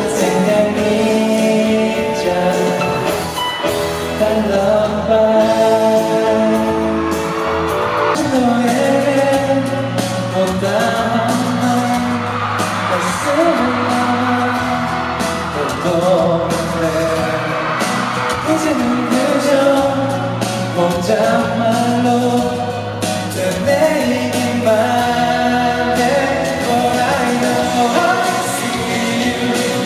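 A man singing a pop song live into a handheld microphone, over instrumental backing.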